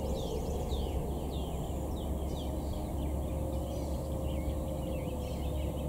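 Birds chirping with quick, repeated down-slurred notes over a steady low rumble. Near the start, the low, slightly falling tone of a distant American Signal T-128 siren winding down fades out, and it comes back faintly later on.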